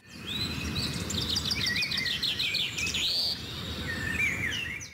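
Songbirds chirping and singing: a quick run of repeated notes and several whistled slurs, over a steady low background rumble of outdoor noise.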